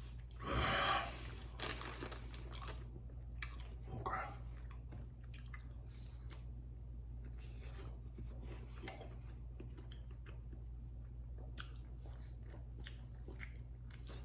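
A man biting and chewing chicken wings, tearing the meat off the bone. The loudest bite comes about half a second in, followed by quieter chewing with small scattered clicks.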